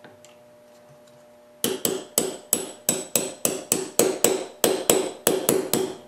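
Small gunsmithing hammer tapping a steel pin punch, driving pins into a Smith & Wesson M&P pistol frame. About fifteen quick metallic taps, roughly three a second, start about a second and a half in.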